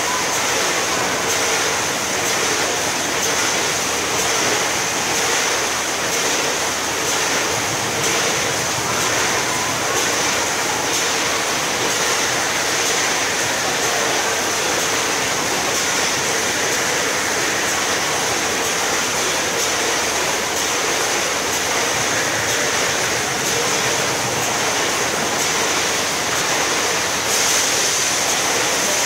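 GPM automatic case packer for bagged legumes and rice running: a steady mechanical whir with a high hiss and faint regular clicks. It grows slightly louder near the end.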